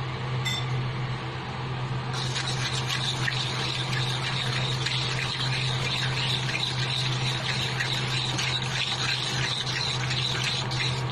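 Egg-and-tomato broth bubbling in a wok as it comes to the boil: a dense crackle of small pops that grows busier about two seconds in, over a steady low hum.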